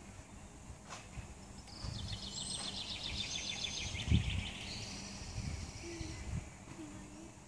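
A small songbird singing a fast, high trill lasting a few seconds, over steady outdoor background noise. Several low thumps are mixed in, the loudest about four seconds in.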